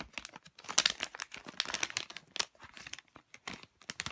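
Shiny plastic blind-bag wrapper of a squishy toy crinkling and crackling as it is handled and torn open.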